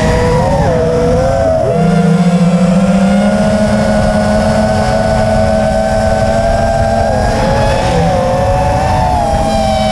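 Five-inch FPV racing quadcopter's brushless motors (Xing-E 2207 1800kv) spinning Nazgul 5043 props, heard from the onboard camera: a steady whine of several close tones that dip and rise with throttle changes about a second in and again around eight seconds in.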